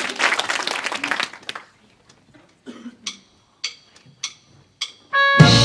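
Audience clapping that dies away after about a second and a half, then four evenly spaced drumstick clicks counting in, and near the end a rock band starts playing with keyboard, guitar and drums.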